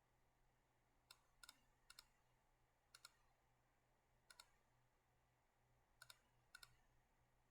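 Faint computer mouse clicks, about seven spread through, several in quick pairs like double-clicks, over a faint low hum of room tone.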